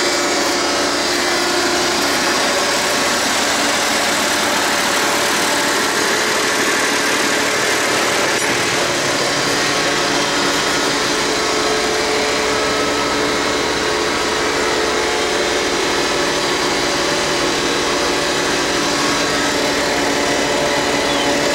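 Massey Ferguson 1105 tractor's six-cylinder diesel engine idling steadily at about 900 to 1000 rpm.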